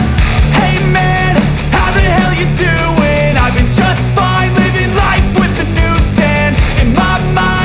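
Music: a song with a steady drum beat and a melody over it.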